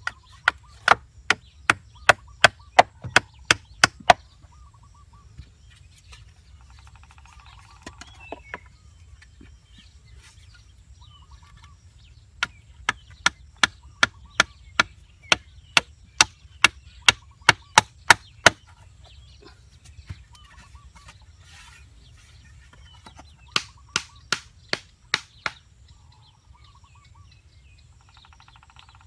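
A wooden stick knocking bamboo poles into place, in three runs of sharp, even strikes at about three a second with pauses between.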